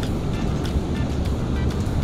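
Background music over a steady low rumble of wind on the microphone, with a few light clicks.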